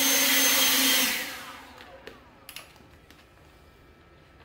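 EGO 56-volt, 530 CFM cordless leaf blower running with a steady rush of air and a fan hum, switched off about a second in and winding down over the next second. A few light clicks follow.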